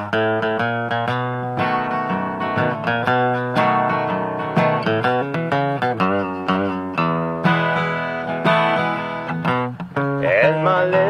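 Acoustic guitar playing the intro of a country song, a run of picked notes ringing on over a bass line. A man's singing voice comes in near the end.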